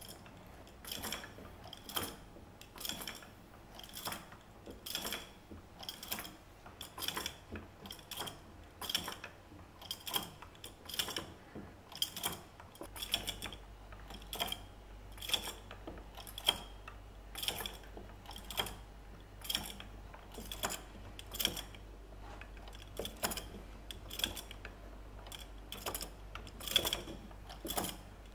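Hand-cranked wooden automaton turning: its wooden cams, levers and pulleys click and knock in a steady rhythm, about twice a second, as the carved birds' heads rise and fall.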